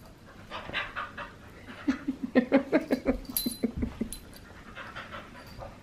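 Australian cattle dogs play-fighting: about two seconds in, a quick run of short dog vocalisations, about five a second for some two seconds, amid soft scuffling and a few light clicks.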